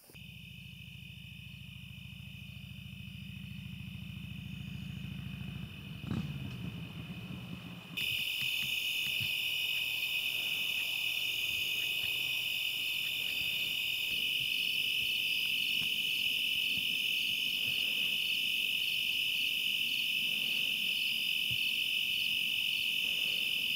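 Steady insect chorus, a continuous high chirring that carries on throughout and becomes much louder at an abrupt change about 8 seconds in. A low hum lies under it for the first few seconds, with a brief knock about 6 seconds in.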